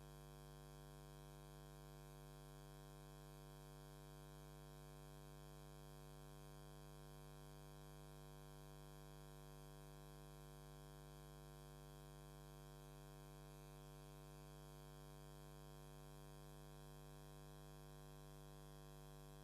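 Faint, steady hum with many even overtones, unchanging throughout, with no taps or strikes.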